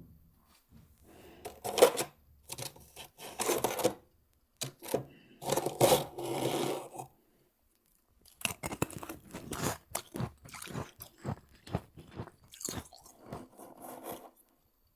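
Close-miked biting and chewing of soft, powdery freezer frost: a run of crunchy bites and chews, broken by a short pause about four seconds in and a longer pause about halfway.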